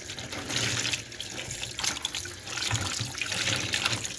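Kitchen tap running into a plastic basin in a stainless-steel sink while a cloth rag is rinsed and squeezed by hand in the water, with uneven splashing.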